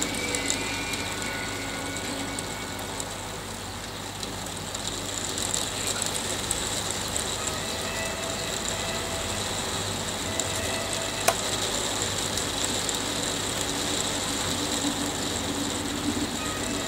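Hail falling, a dense, steady stream of small hard ticks, with one sharper click about eleven seconds in.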